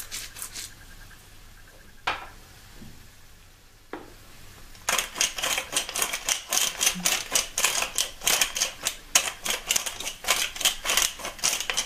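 Hand-turned pepper mill grinding black pepper over a frying pan: a rapid, even run of dry clicks, several a second, starting about five seconds in. Before that there are only two single clicks.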